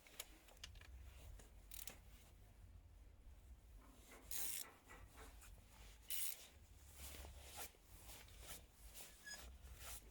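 Faint metal-on-metal rubbing and scraping of hand tools working a glow plug loose, with two brief hissy bursts about four and six seconds in.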